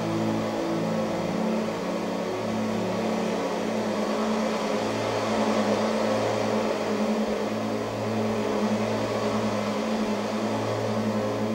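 Droning music: sustained low tones layered over a steady hiss, with the held notes shifting every few seconds.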